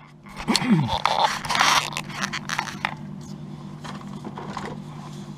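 Close scraping and rustling handling noises in the first two seconds, with a short falling vocal sound about half a second in. A steady low hum follows.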